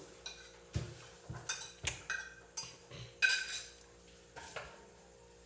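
Cutlery clinking against plates and dishes: about nine irregular sharp clinks with a short metallic ring, spread through the first four and a half seconds.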